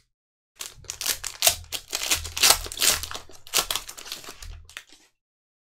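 Trading card pack wrapper crinkling and crackling as gloved hands tear it open. It starts about half a second in and stops about a second before the end.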